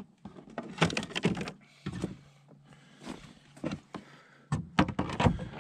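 Irregular knocks, clicks and scrapes of handling in a fishing kayak while a bass is held and lifted, coming in short clusters with pauses between them.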